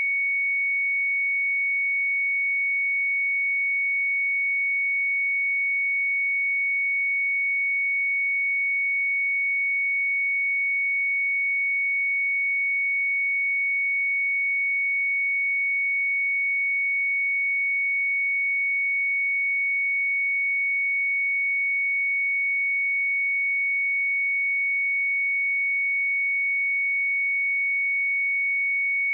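A pure 2227 Hz sine-wave test tone, one steady unbroken pitch at constant level.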